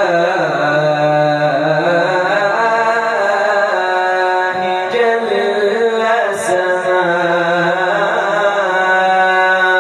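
Man's voice singing Islamic devotional chant (ibtihal), drawing out the word "lillah" in one long ornamented melisma that winds up and down in pitch.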